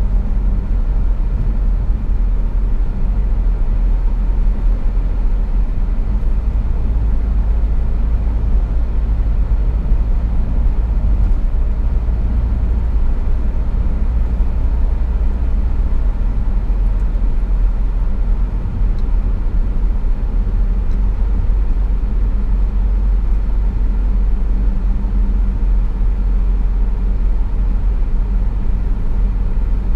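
Steady low rumble of a car driving at road speed, with tyre, road and engine noise heard from inside the cabin.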